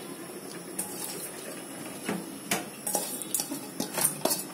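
A metal spatula stirring diced eggplant and chillies in a metal wok over a steady hiss. From about two and a half seconds in comes a quick run of scrapes and clacks as the spatula strikes and drags along the pan.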